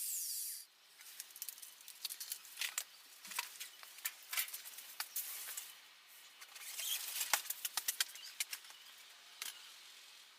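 An angle grinder spinning down in the first half-second after being switched off, then scattered light clicks, taps and scrapes of work resuming by hand.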